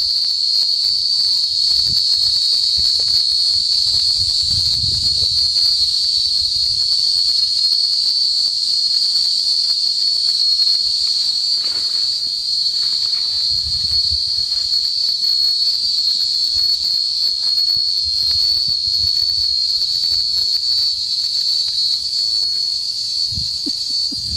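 Chorus of cicadas singing in one loud, unbroken, high-pitched drone.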